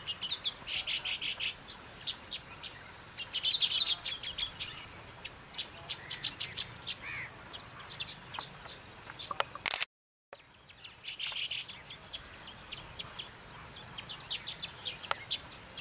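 Baya weaver colony chattering: dense runs of short, high chirps and sputtering calls. The sound drops out completely for about half a second around two-thirds of the way through.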